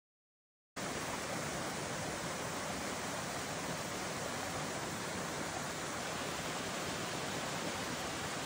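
Mountain stream pouring over a small rocky cascade, a steady rush of whitewater. Silent for the first moment, then the water sound comes in abruptly.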